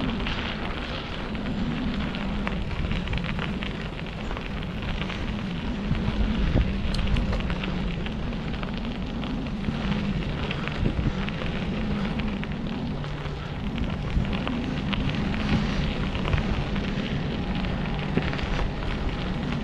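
Wind buffeting the microphone of a bike-mounted camera while a bicycle rolls along a dirt trail, with a steady rumble and a constant crackle and rattle from the tyres and mount.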